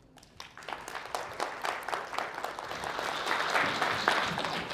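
A small audience applauding, swelling over the first second or so and starting to die away near the end.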